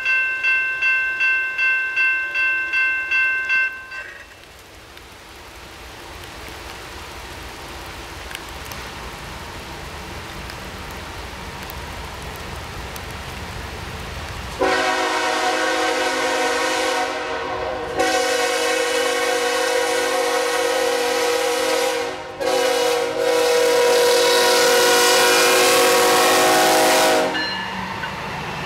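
A bell-like tone rings rapidly, about three strokes a second, and stops about four seconds in. The rumble of an approaching diesel-hauled coal train then builds slowly. The lead GE ES44AC locomotive's horn sounds loud in a long, long, short, long pattern, the grade-crossing signal, and stops as the locomotives pass.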